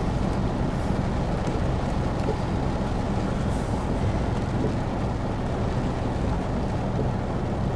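Steady low rumble of a vehicle running, heard from inside its cabin.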